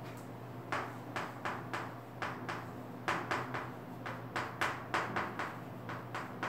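Chalk writing on a chalkboard: a quick, irregular series of short taps and scrapes as each stroke of the letters is made, about three a second.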